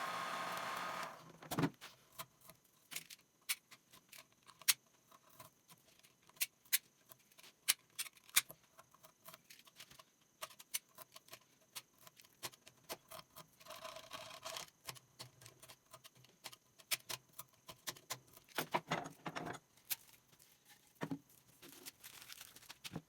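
A steady hiss like a blower cuts off about a second in. Then come scattered faint clicks and light taps, like a cricket bat and tools being handled on a workbench.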